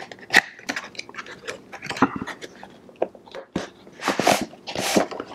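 Cardboard product box being opened by hand: quick crackles and small tearing sounds as the seal is picked and peeled, then two longer rustling swishes of cardboard near the end as the box is pulled open.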